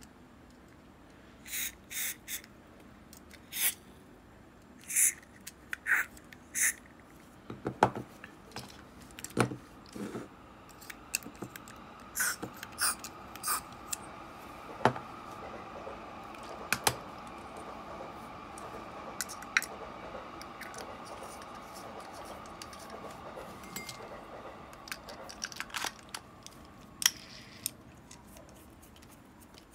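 Short hissing bursts of aerosol spray from a can of cleaner aimed into an Abu Garcia Ambassadeur 5500C baitcasting reel, about seven in the first few seconds. Then sharp metallic clicks and taps of the reel's small metal parts being handled and fitted together.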